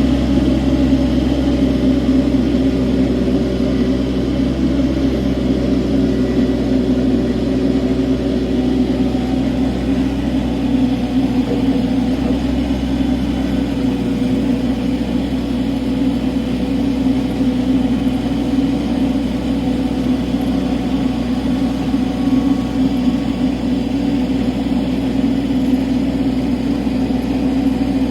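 An engine running steadily at a constant speed, a loud low hum that holds the same pitch throughout.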